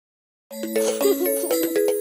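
Silence, then about half a second in, cheerful children's cartoon music starts with chiming, bell-like notes.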